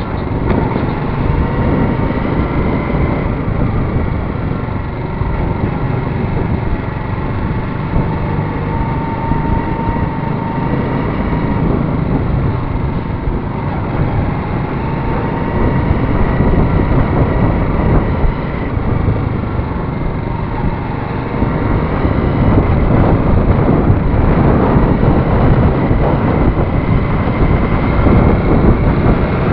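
Motorcycle engine running under way, with steady road noise, growing louder about two-thirds of the way through.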